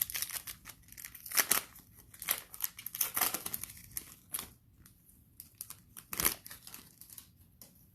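A plastic trading-card pack wrapper being torn open and crinkled, in a run of short rustles that are loudest about a second and a half in, around three seconds, and just after six seconds.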